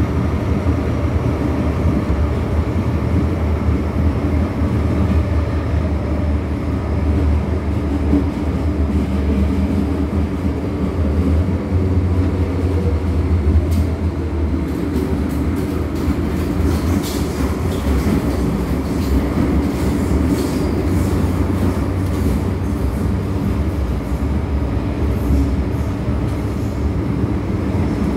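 MTR M-Train electric multiple unit running on the underground Island Line: a steady low rumble of wheels on rail, with faint quick clicks coming in from about halfway.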